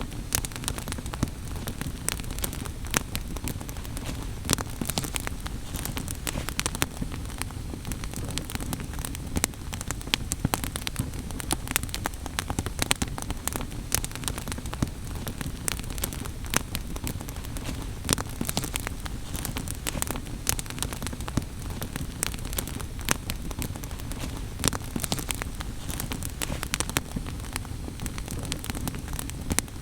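Firewood burning in an open fire, crackling with frequent irregular sharp pops over a steady low rumble of flames.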